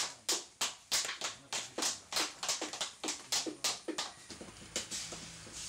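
Wet potter's clay being slapped and patted by hand in a quick steady rhythm, about three to four sharp slaps a second, growing fainter about four seconds in.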